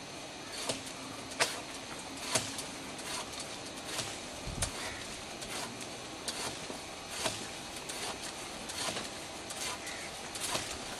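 A long-reach manual pole pruner worked among tree branches: irregular sharp clicks and snaps over a steady hiss, with a dull thump about four and a half seconds in.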